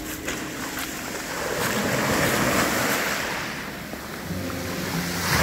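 Sea waves breaking and washing up a shingle beach: a steady rushing surge that swells about two to three seconds in, ebbs near four seconds, then builds again.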